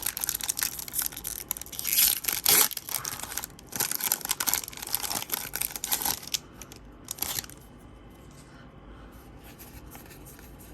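Pokémon trading card booster pack's foil wrapper being torn open and crinkled in the hands, dying down to quiet handling about seven and a half seconds in.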